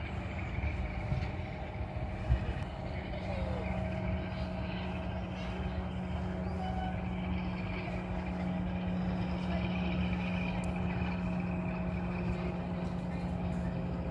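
Distant Class 45 diesel-electric locomotive's Sulzer twelve-cylinder engine running, a steady low drone that grows slightly stronger about eight seconds in.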